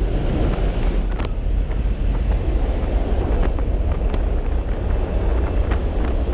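Loud, steady rush of wind and aircraft engine noise in a jump plane's cabin with the door open, the wind buffeting the microphone.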